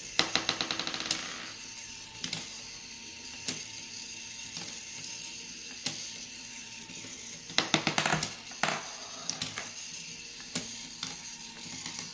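Small battery-powered motor of a wooden marble-run toy running steadily while steel marbles click and clatter as the gears step them up and drop them through the wooden tracks. A quick run of rattling clicks comes in the first second, single clicks every second or two after that, and a denser clatter about two-thirds of the way in.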